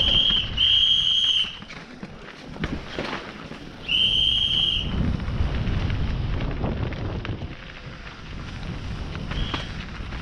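Shrill whistle blasts: two close together at the start, a longer one about four seconds in, and a faint short one near the end, over wind noise on the microphone.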